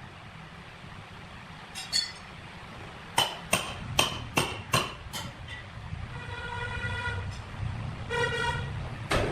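Five sharp, ringing metal clanks in quick succession over a low steady machinery hum, followed by two short pitched toots and a final knock near the end.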